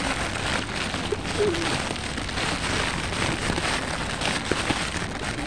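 A plastic feed bag crinkling and rustling as it is handled and opened right at the microphone, with a dense flock of pigeons fluttering their wings around it.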